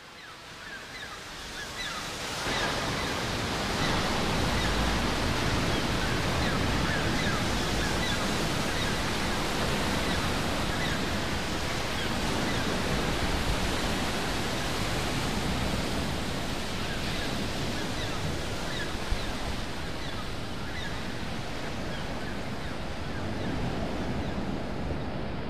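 Surf breaking on a sandy beach: a steady, even wash of waves that fades in over the first couple of seconds.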